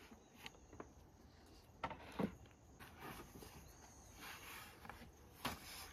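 Faint rustling and a few soft knocks as thin flatbread sheets are lifted and stacked on a wooden board. The loudest knocks come about two seconds in and near the end.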